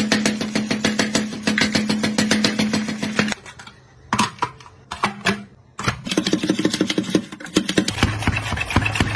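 Hand-operated vegetable slicer clacking in a fast run of strokes as vegetables are pushed through its blades, with a steady low hum under the first run. The strokes stop about three and a half seconds in, leaving a few single knocks, and start again about six seconds in.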